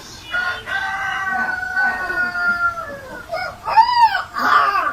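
An animal calling: one long, drawn-out call that falls in pitch at its end, then a few short calls that rise and fall near the end.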